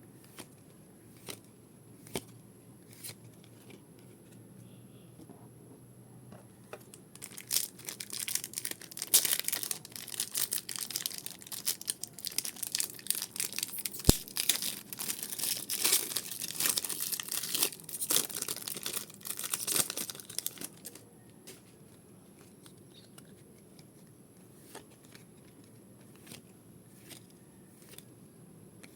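Pokémon card pack wrappers being torn open and crinkled by hand for about fourteen seconds, with scattered light clicks and taps of handling before and after.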